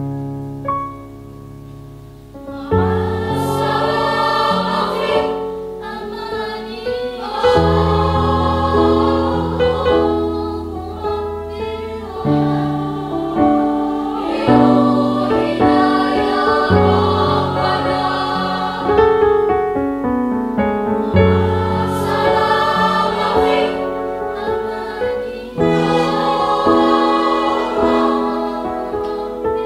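Girls' choir singing in several-part harmony, in phrases of held notes with short breaks, over low sustained bass notes. The singing gets louder about three seconds in.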